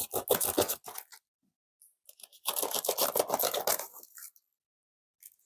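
Packing tape being ripped off a large cardboard shipping box and its flaps pulled open. It comes in two bouts of rapid ripping, a short one in the first second and a longer one from about two and a half to four seconds in.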